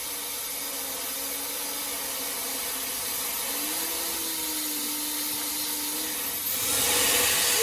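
Brushless (BLDC) motor hair dryer running on its first speed: a steady rush of air with a faint high motor whine. About six and a half seconds in it gets louder and brighter as it steps up to a higher speed.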